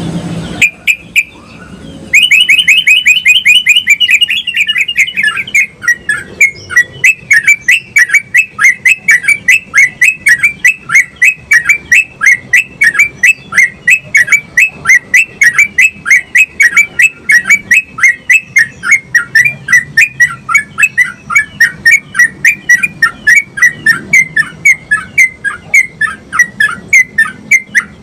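Caged yellow-vented bulbul (trucukan) singing in full voice: a quick run of notes about two seconds in, then a long string of loud, falling notes repeated about three times a second.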